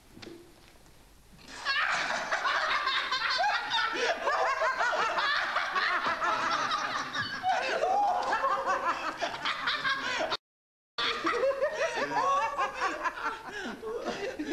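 A group of people laughing together, breaking out about two seconds in and running on with many overlapping voices; the sound cuts out completely for about half a second near the end.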